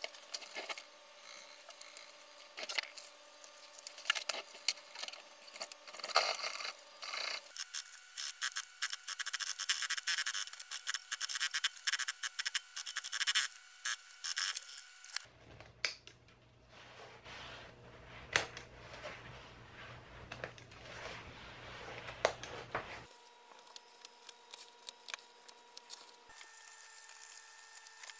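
Industrial sewing machine stitching a leather seat cover, with the clicks and rustle of the leather being fed and handled around it. The background hum changes abruptly several times as the sound cuts between short clips.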